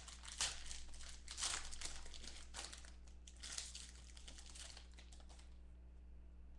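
Foil wrapper of a football trading-card pack crinkling in the hands as the pack is opened, a string of crackly rustles that die down about five seconds in.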